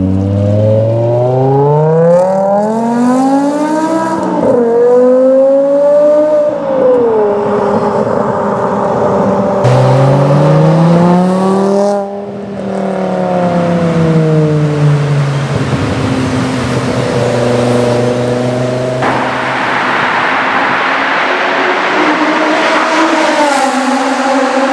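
BMW M5 E60's V10 through an aftermarket exhaust, pulling hard in several accelerations, its pitch climbing up through the gears and sweeping down as the car passes. The last pulls come from a road tunnel, where it rings off the walls.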